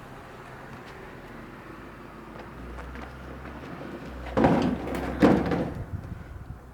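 Two loud metal scrapes about a second apart, near the end: a mini truck's steel bed being shifted and dragged on the frame as it is lowered into place.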